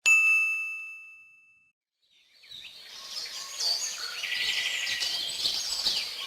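A single bright ding struck once, ringing out and fading over about a second and a half. About two seconds in, a chorus of high bird chirps fades in and carries on.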